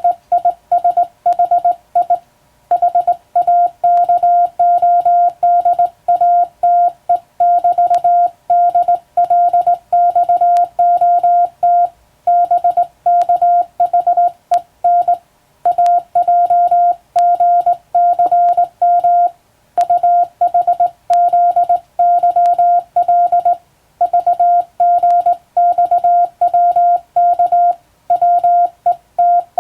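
Morse code sent by hand on a telegraph key, heard as one steady mid-pitched beep keyed on and off in dots and dashes, with longer pauses between groups of characters.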